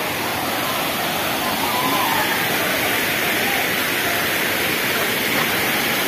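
Steady rush of falling water from a waterfall, with faint voices in the background.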